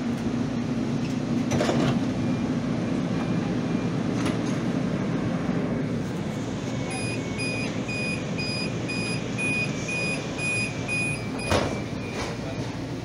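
Interior of a CTrain light-rail car standing with a steady hum, then a door-closing warning: a rapid series of high beeps, about two or three a second for roughly four seconds, ending in a sharp knock as the sliding doors shut.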